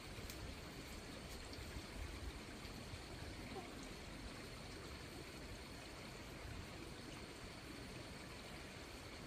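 Faint, steady rushing noise with no distinct events, of the kind running water or outdoor ambience makes.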